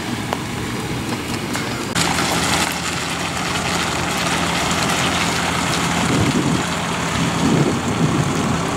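Ford F-150 pickup towing a boat on a trailer drives off past the camera: a steady engine hum and tyre noise, growing louder near the end as the truck and trailer come close.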